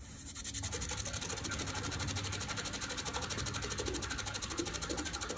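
Water rushing through an irrigation diaphragm solenoid valve and its PVC pipe just after the timer opens the valve: a steady hiss with a fast, even fluttering pulse that starts about half a second in.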